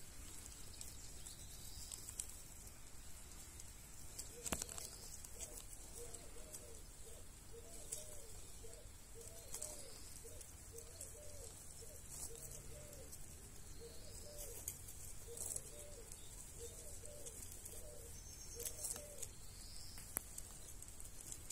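A dove cooing, faint, in repeated phrases of short low notes from about four seconds in until near the end.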